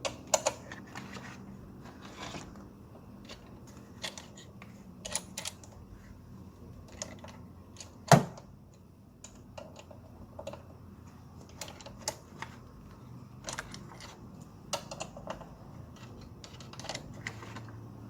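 Metal hand tools clicking and tapping at irregular intervals while working on the engine's coil packs, with one sharper knock about eight seconds in.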